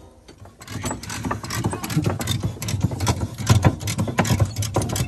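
Hand tools working on a bolt of the UTV's engine: a rapid, irregular run of sharp metallic clicks and knocks over a low hum. It starts about a second in and grows louder.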